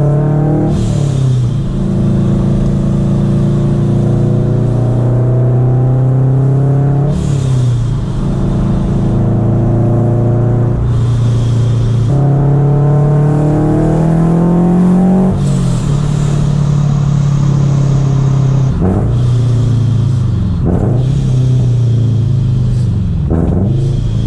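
Supercharged Scion FR-S's flat-four engine pulling through the gears. Its pitch climbs for several seconds and drops at each upshift, about three times, then rises and falls in shorter swoops near the end.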